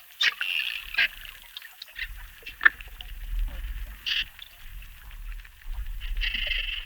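Dolphins calling: short squeaky chirps and sharp clicks at irregular intervals, with one quick falling whistle a little before the middle. A low rumble runs underneath from about two seconds in.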